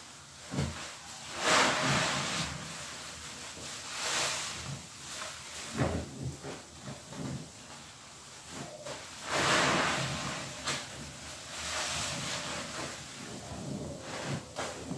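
Wet, lathered sponges squeezed and wrung by hand, squelching and hissing with foam in several squeezes a few seconds apart.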